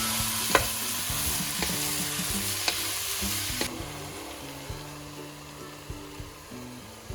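Chicken stir fry sizzling in a hot pan while it is stirred, with a utensil knocking against the pan a few times. The sizzle drops off abruptly about three and a half seconds in, leaving a quieter hiss.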